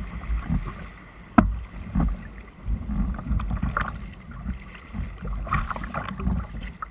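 Water splashing and rushing around a sea kayak's bow as a paddler strokes through small breaking surf, with low buffeting on the microphone close to the water. A single sharp knock comes about a second and a half in.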